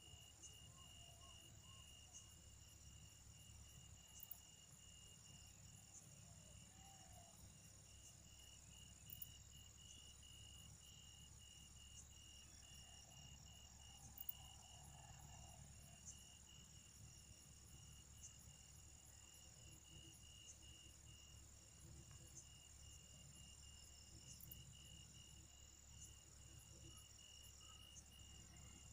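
Faint, steady trilling of crickets, one continuous finely pulsed high chirp with fainter higher insect tones above it. A few soft clicks come through about four, nine, fourteen and twenty-four seconds in.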